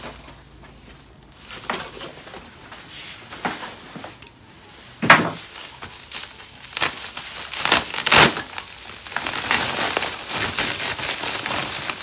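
Packaging being handled during an unboxing: crinkling and rustling with several sharp knocks, quiet at first and louder in the second half.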